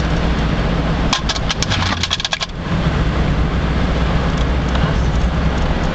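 Car engine and road noise heard from inside the cabin, a steady low hum. About a second in, a quick run of clicking and clinking, like small metal items rattling, lasts about a second and a half while the low engine hum briefly drops away, then the hum returns.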